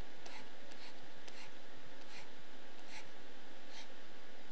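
Graphics-tablet pen scratching across the tablet surface in short strokes as straight horizontal lines are drawn. A faint swish comes a little more often than once a second, over a steady hiss.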